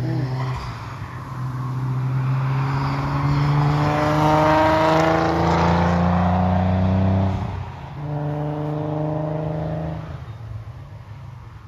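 Nissan 300ZX Twin Turbo's 3.0-litre V6 accelerating hard past on a race circuit. The engine note climbs steadily, drops sharply at a gear change after about seven seconds, climbs again, then fades as the car pulls away.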